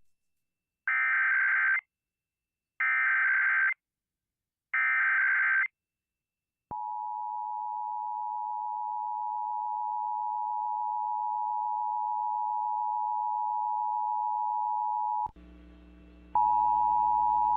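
Emergency Alert System test on the radio: three one-second bursts of SAME digital header data, then the steady two-tone EAS attention signal (853 and 960 Hz) for about eight and a half seconds. After it cuts off, a low hum comes up, and another steady tone starts near the end.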